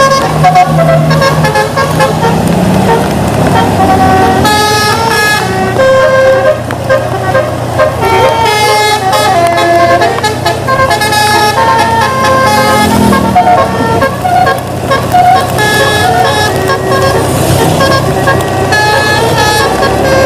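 A bus's musical air horn (telolet) plays a tune of short stepped notes, one after another, over the bus engine running underneath.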